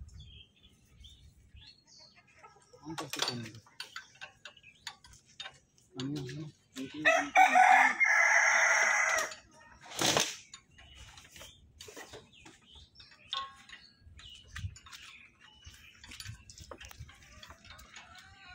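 A rooster crowing once, loudly, about a third of the way in, the call rising in pitch and lasting around three seconds. Scattered light clicks and knocks from hands working on the tractor engine sound faintly around it.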